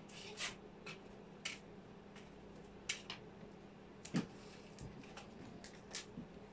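Scattered light clicks and scrapes of parts being handled and fitted on a Reximex Throne PCP air rifle during reassembly, the sharpest click about four seconds in, over a faint steady hum.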